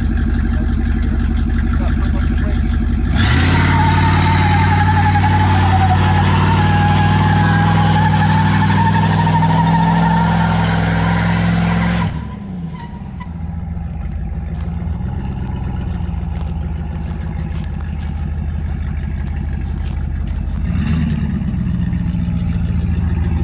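Car engine and exhaust running steadily. About three seconds in it suddenly gets louder and hissier, and it drops back down abruptly near twelve seconds.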